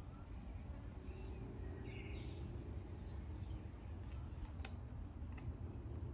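Outdoor ambience: a steady low rumble with birds chirping about two seconds in, and a few faint sharp clicks in the second half.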